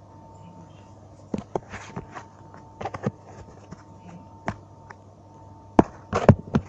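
Handling noise from a phone being moved and gripped close to the microphone: scattered knocks and rubbing, with a cluster of louder knocks near the end, over a faint steady hum.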